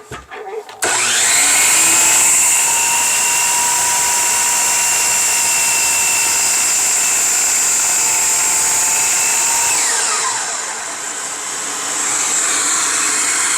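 DeWalt DWS779 miter saw with an 80-tooth blade, started up and run through a test cut while a vacuum dust extractor runs with it. About ten seconds in the saw is let go and its whine falls in pitch as the blade spins down, while the extractor keeps up a steady hiss.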